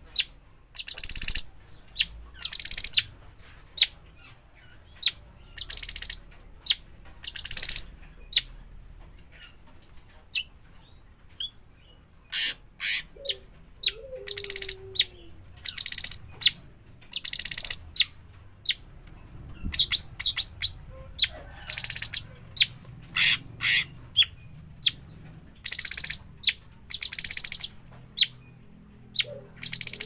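A young blue-winged leafbird (cucak cungkok) giving short, sharp, high chirps, one or two a second, with a quieter gap about a third of the way in.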